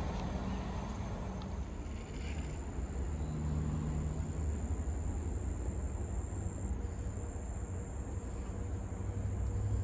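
Crickets chirring in one steady, high, thin trill over a constant low rumble.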